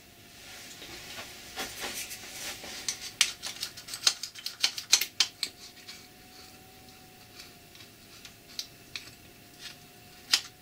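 Irregular clicking and tapping from a pump oil can being worked to squirt oil into a new felt lathe bed wiper. The clicks come thick and fast for a few seconds, then thin out to an occasional tap.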